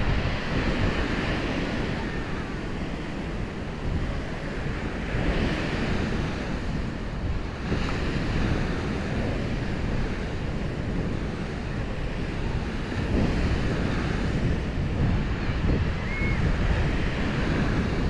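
Wind buffeting the microphone over the steady wash of small waves breaking on a sandy beach.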